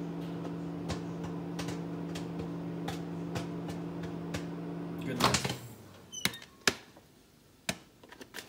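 Samsung microwave oven running with a steady hum while a bag of popcorn pops inside, the pops scattered at about two a second: the slowing pops show the popcorn is nearly done. About five seconds in the hum stops with a loud click as the microwave door is opened, followed by a few knocks.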